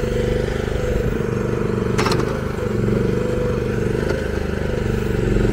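FF Industrial FF12 mini excavator's small engine running steadily as it digs with its bucket, with a single sharp clack about two seconds in.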